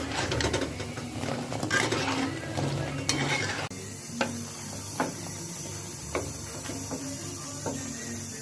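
A spatula stirring and scraping food in a frying pan over sizzling oil. After about three and a half seconds the sound changes abruptly to separate sharp taps of a utensil against the pan.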